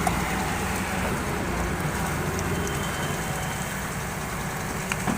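Heavy construction machine's diesel engine running steadily, with a couple of short knocks near the end.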